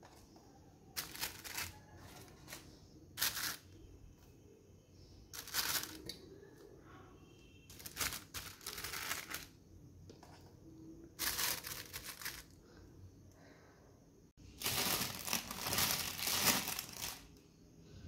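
Thin plastic sheet crinkling and rustling in short bursts every second or two as it is peeled back off a layer of kabab patties, with a longer spell of rustling near the end.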